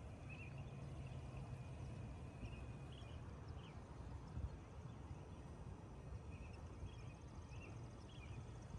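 Scattered short bird chirps over a steady low rumble of outdoor background noise.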